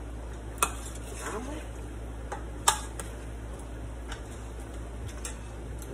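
Metal spoon stirring chicken pieces in a metal pot, clinking against the pot's side. Two sharp clinks, one about half a second in and one near the middle, with lighter taps and scrapes between, over a steady low hum.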